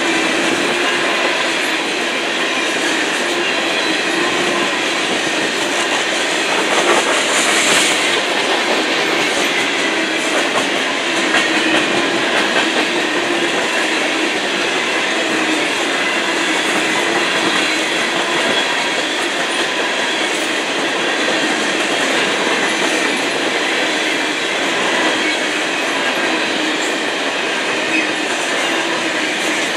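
Empty covered hopper cars of a freight grain train rolling past: the steady running noise of steel wheels on rail, briefly louder about seven seconds in.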